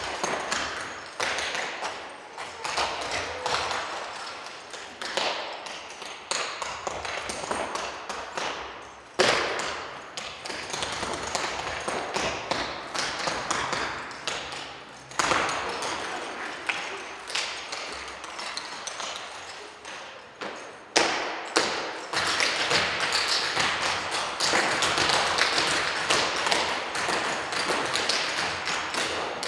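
Percussive dance footwork by a group of dancers: shoes rapidly tapping and stamping on a wooden stage, with no music. A few harder stamps stand out, and the stepping gets denser and louder for the last several seconds.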